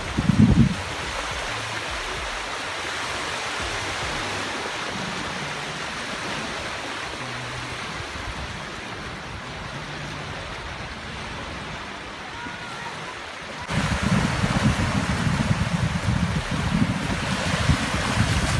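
Steady rushing noise like running water or surf, with a louder low rumble coming in at about 14 seconds.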